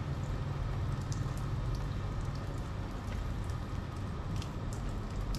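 Meltwater from thawing snow dripping off a corrugated metal awning: scattered, irregular drips over a steady low rumble.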